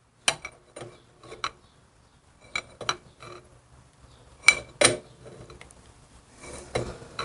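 Sharp metal clinks, about ten of them at uneven spacing with the loudest pair near the middle, as a wrench works the nut of a cam bearing puller. It is slowly drawing the old cam bearing out of a Harley-Davidson Evolution crankcase.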